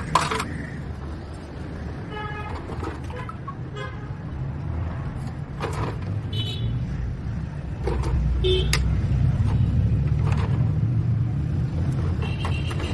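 A motor vehicle engine running with a steady low rumble that gets louder about eight seconds in, with a few short horn toots.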